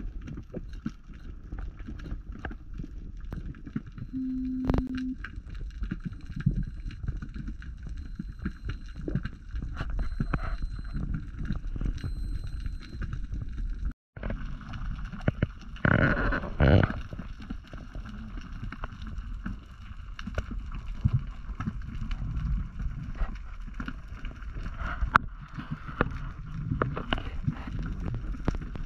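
Underwater ambience picked up by a submerged camera: a steady low rumble of moving water with scattered clicks and crackles. A louder rush of water noise comes about two-thirds of the way through, and the sound drops out for an instant near the middle.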